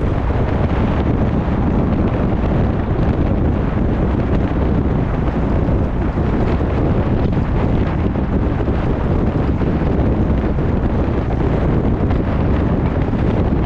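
Wind buffeting a handlebar-mounted camera's microphone on a moving road bike, a steady, loud rumble that doesn't let up.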